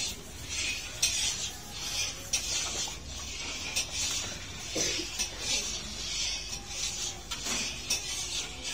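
Long iron stirring rod scraping around the bottom of a large iron karahi of boiling milk and sugar, in steady strokes about twice a second, with small clinks of metal on metal.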